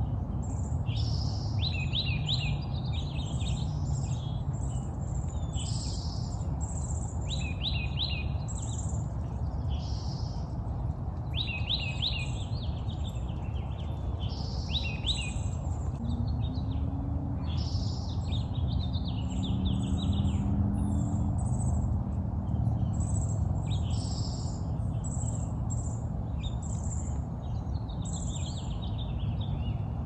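Several songbirds singing and chirping in a morning chorus, with a quick trilled phrase repeated every few seconds among other calls. A steady low rumble runs underneath, and a faint low hum comes and goes in the middle.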